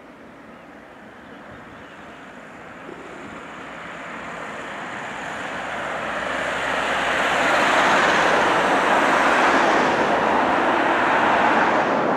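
Narrow-gauge steam locomotive standing with steam blowing off: a steady hiss that swells over about eight seconds and then holds loud.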